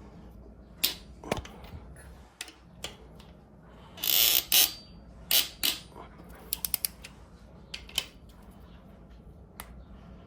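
Torque wrench ratcheting in short runs, with separate sharp metal clicks and knocks, while the main bearing girdle bolts of a Honda D16 bottom end are tightened to 18 foot-pounds.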